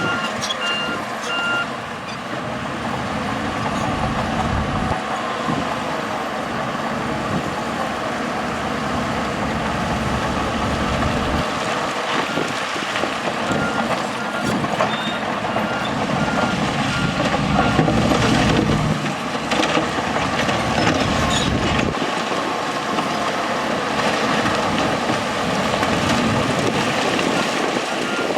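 Diesel engines of heavy earthmoving machines running under load, with a reversing alarm beeping in a steady series near the start, again midway, and near the end.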